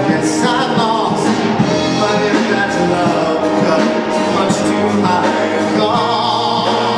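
Live orchestra with strings playing, with singing voices holding long notes with vibrato over it.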